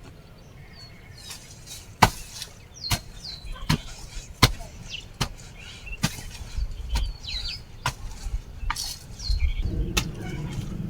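A hand garden tool striking soil and vegetation in a steady chopping rhythm, about one stroke a second, while small birds chirp.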